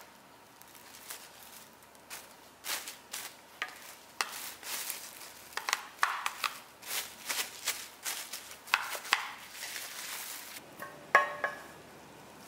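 Plastic cling film being pulled, stretched and crinkled over a metal loaf tin, a long run of irregular crackles, with one sharper click near the end.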